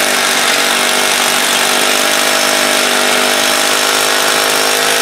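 Bosch RH432VCQ SDS-plus rotary hammer drill running steadily under load, hammer-drilling a 5/8-inch hole into hard, 50-year-old concrete: a loud, even motor whine over the rattle of the bit chiselling into the concrete.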